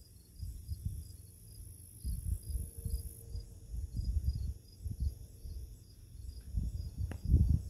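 Crickets and other insects chirping in steady, even pulses, with a higher insect buzz that stops about three seconds in. Under them, gusty wind rumbles on the microphone and is the loudest sound.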